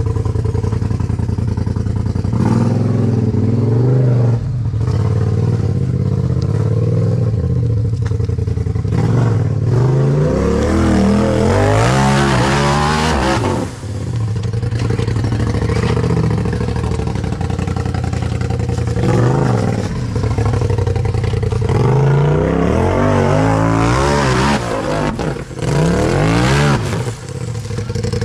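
An off-road UTV's engine revving up and falling back again and again under load as it works to climb a rock ledge. The pitch rises and falls in repeated surges, with a brief dip about halfway through.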